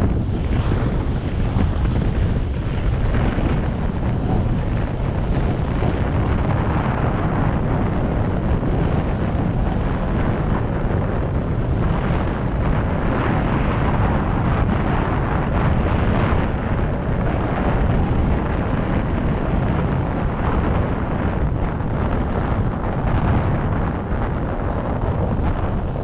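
Wind buffeting the microphone of a chest-mounted camera on a road bike moving at speed: a loud, steady rumbling rush with no breaks.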